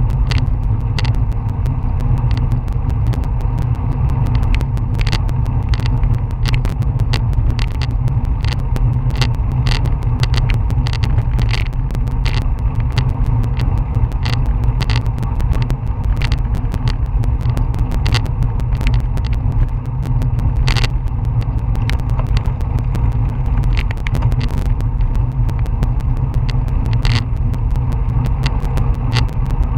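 Wind buffeting the microphone of an action camera mounted on a road bicycle rolling at about 18 mph, heard as a steady low rumble. Frequent irregular sharp clicks and knocks sound over it.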